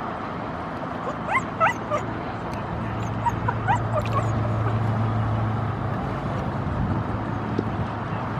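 Gulls calling: short rising cries, several in quick succession about one to two seconds in and a few more around four seconds, over a steady background hiss. A low, steady engine-like drone swells in the middle and fades again.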